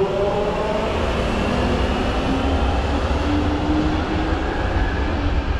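London Underground train running at the platform: a steady low rumble with a whining tone that drifts slowly in pitch.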